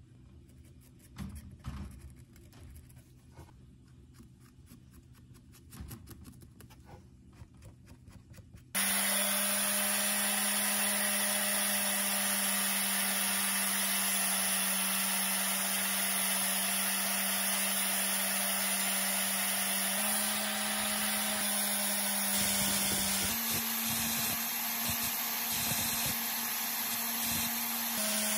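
A few faint clicks and knocks, then about a third of the way in an electric power tool switches on and runs steadily with a loud hiss and a steady hum, its pitch stepping up slightly twice near the end.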